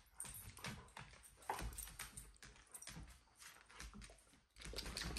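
Dogs' claws clicking and scrabbling on a hardwood floor in quick, irregular taps as two dogs play-wrestle, quietly.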